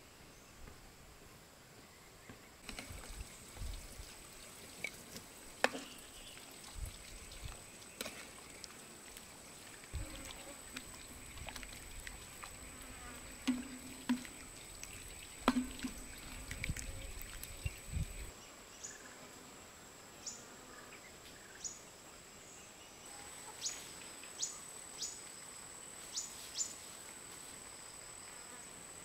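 Steady high insect whine under a rural ambience. Through the first half come clinks, knocks and pouring as soup is dished out of a metal wok into a bowl. Later there are a dozen or so short, high, falling bird chirps.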